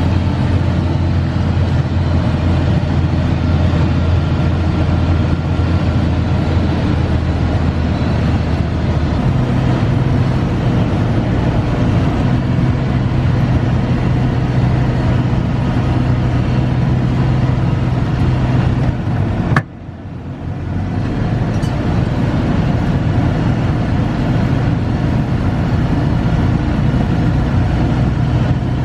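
A farm vehicle's engine running steadily. Its pitch steps up about a third of the way in, as the engine speeds up. About two thirds in, the sound drops away for a moment and then comes back.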